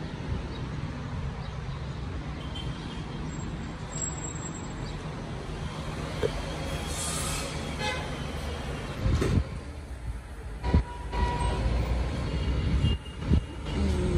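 Steady hum of city street traffic, cars passing on a busy road, with a few short louder thumps in the second half.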